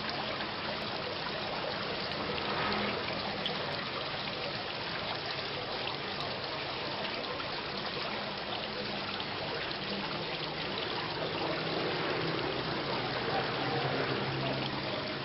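Steady rain, with water dripping and trickling.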